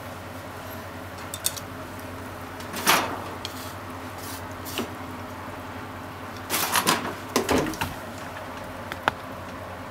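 A frying pan knocking and scraping against a gas hob's grate as it is moved, a few sharp clicks and clunks, the loudest about three seconds in and a short cluster around seven seconds in, over a steady low kitchen hum.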